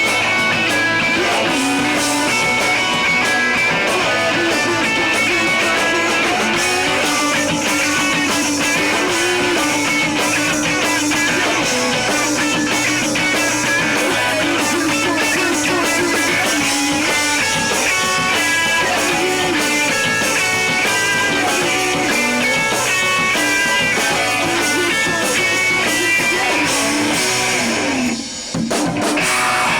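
Rock band playing live without vocals: electric guitar lines over a drum kit, loud and steady, with a short break about a second before the end before the band comes back in.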